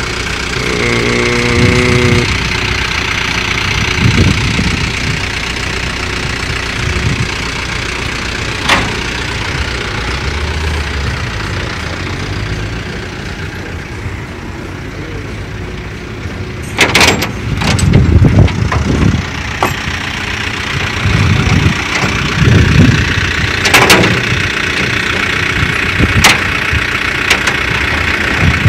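A vehicle engine idling steadily, with sharp metallic clanks and knocks every few seconds. The loudest cluster of clanks comes about two-thirds of the way through.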